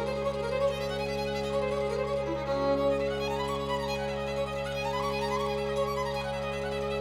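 Recorded music with no singing, played through Elfton Elevator loudspeakers and picked up in the room: a melody of rising and falling runs of notes over steady held low notes.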